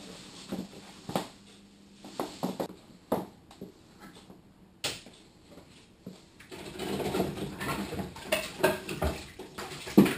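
Dishes and kitchenware clinking and knocking, in scattered single strikes, followed by a few seconds of denser rustling and clatter and a sharp knock near the end.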